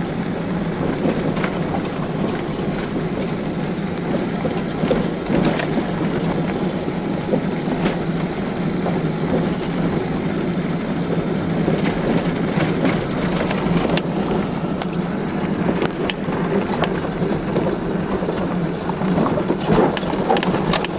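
Car driving over a rough gravel road: steady engine and tyre noise, with scattered clicks and knocks of gravel and the car jolting over the uneven surface.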